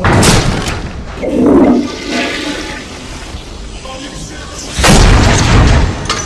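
Action sound effects from an animated battle: two loud booms, one at the start and one about five seconds in, with a short voice-like cry between them.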